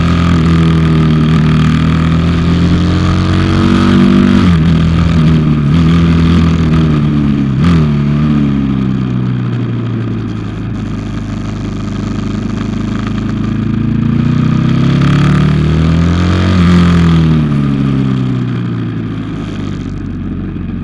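640 SM supermoto motorcycle engine heard from on board while riding through bends, with wind rushing over the microphone. The engine note climbs and drops sharply at gear changes a few seconds in. It eases off around the middle, climbs again to a peak near the end, then falls as the throttle is rolled off.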